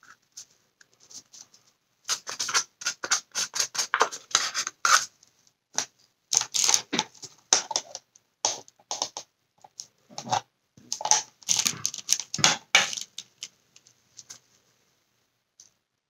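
Irregular scratching and clicking of art supplies being handled on the work table, including a paper cup being set down, in uneven clusters with pauses.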